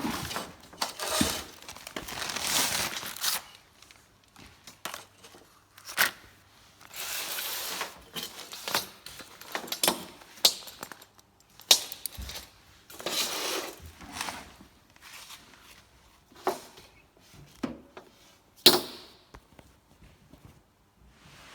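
Irregular handling noises: sharp clicks, knocks and brief rustling scrapes, about a dozen spread unevenly.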